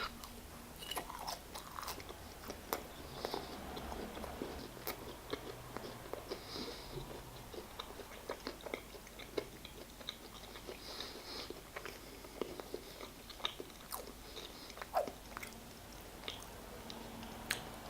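Close-miked mouth sounds of a person chewing and biting food, a chicken burger meal: many small, irregular wet clicks and soft crunches, fairly faint.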